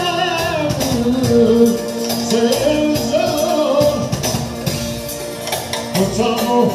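Tallava song performed live: a man singing a wavering, ornamented vocal line through a microphone over electronic keyboard accompaniment with a steady programmed percussion beat, amplified through PA speakers.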